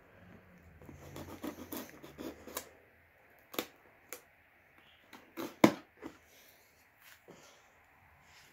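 Cardboard product box being opened and its packaging handled: scattered rustling with a few sharp clicks and taps, the loudest about two-thirds of the way through.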